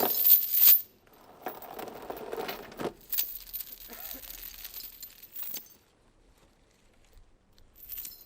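Metal chain rattling and clinking as it is handled, loudest in the first second, then in shorter bursts and single clinks until about six seconds in, with one more brief rattle near the end.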